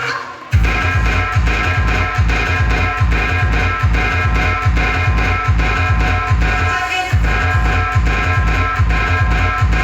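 Loud music played through a sound system, with a heavy, evenly pulsing bass beat and a plucked-string melody. It drops out for a moment just after the start, and then the beat comes in.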